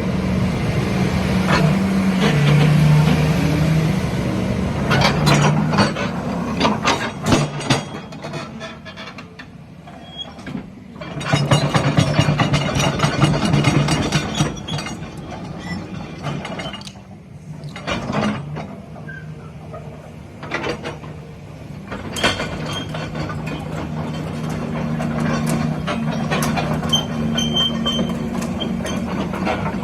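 Volvo EC210BLC crawler excavator's diesel engine running, its note shifting up and down in pitch and loudness, with many metallic clicks and clanks.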